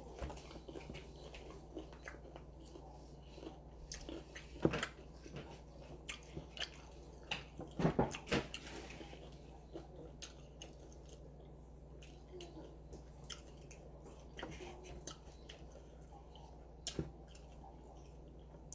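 Close-up chewing of a crisp fried taco: scattered crunches and mouth clicks, the loudest about 5 and 8 seconds in.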